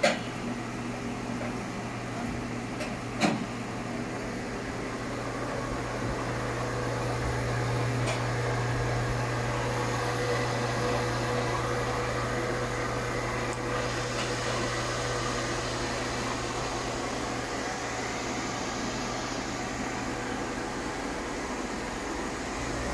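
1997 Haas VF-3 vertical machining center running a program: a steady machine hum with a low drone and a faint whine, and a sharp click about three seconds in.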